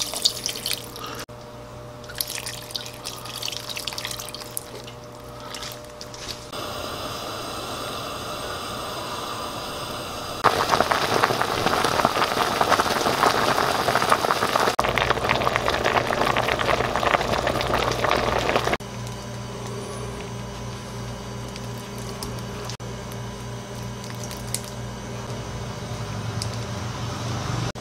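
Water pouring into a stainless steel stockpot of kimchi and pork ribs, then pork back-rib kimchi stew bubbling at a hard boil, loudest through the middle.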